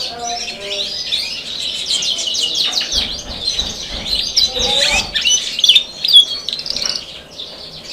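Domestic canary singing a continuous song of rapid trills and chirps.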